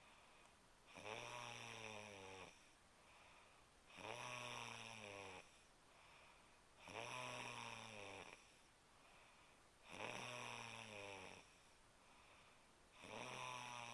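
A sleeping woman snoring: five long snores about three seconds apart, each lasting about a second and a half, with faint breaths in between.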